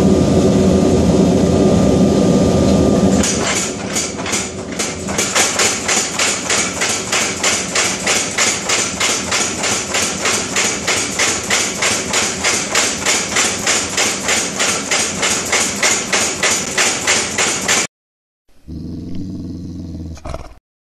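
A forced-air propane forge burner, fed by a hair-dryer blower, runs with a steady loud rush. About three seconds in, a power hammer starts striking hot steel in an even beat of about three to four blows a second, then stops abruptly. After a short gap there is a brief low-pitched sound.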